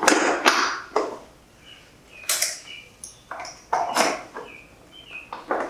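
Yamaha R1 motorcycle seat being pressed and fitted back onto the bike's tail: a string of uneven plastic clunks, knocks and scrapes as it is seated and latched, with a few faint squeaks.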